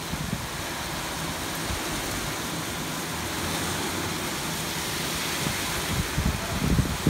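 Heavy rain pouring down steadily onto wet pavement and parked cars, a dense even hiss, with a few low thumps near the end.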